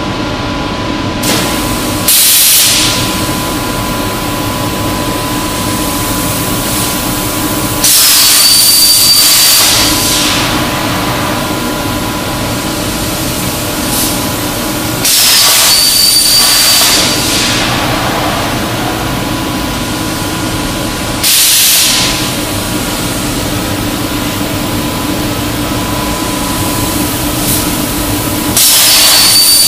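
UMMAK CNC plasma cutting table at work: the plasma torch fires in five loud hissing bursts of one to two seconds, each with a high whistle, over a steady machine hum with a constant tone.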